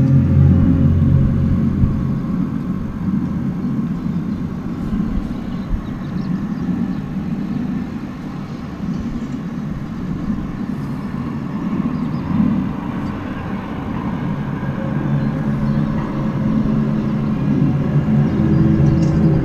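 A low, drawn-out drone made of several steady tones over a rumble, swelling at the start and again near the end. It is the unexplained outdoor noise that the recordist says keeps recurring and has no known source.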